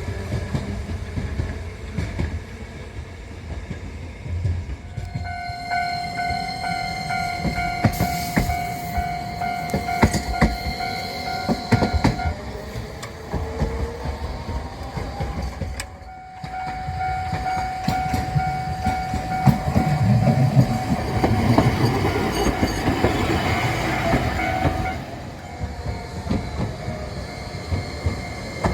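Japanese level-crossing warning bells ringing in quick repeated strokes. One stops about twelve seconds in, and another at a slightly higher pitch starts about four seconds later. A rail vehicle rumbles past over the rails in the second half.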